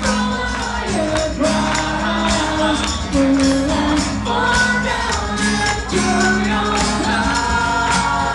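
Live acoustic rock band playing: acoustic guitars over a steady percussion beat, with male and female voices singing together.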